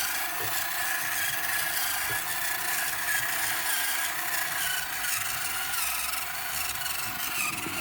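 Servo-driven drum of a model concrete mixer truck turning slowly, with a faint wavering high whine. Under it is a steady rasping hiss of floor-dry granules sliding in the drum as it nears empty.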